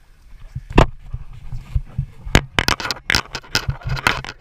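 Irregular knocks, bumps and scrapes of handling noise as a GoPro is jostled among scuba gear, with a sharp knock just under a second in and a quick run of clunks in the second half.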